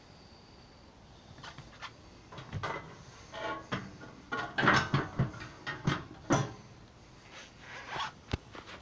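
A string of light knocks and clatters from hands and objects being moved about in a small kitchen, busiest in the middle, with a sharp click near the end.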